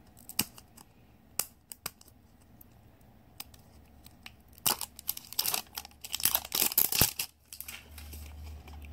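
Hard plastic toy capsule being handled and pried at its seam: a few scattered light clicks, then a couple of seconds of dense plastic scraping and crinkling about halfway through.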